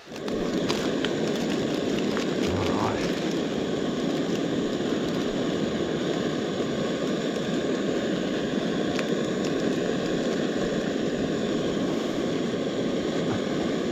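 Portable gas camping stove burner running under a pot of pasta, a steady even rushing hiss.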